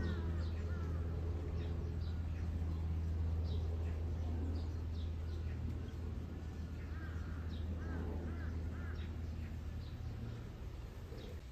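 Crow cawing: a quick series of caws near the start and another series about seven to nine seconds in, over a steady low hum.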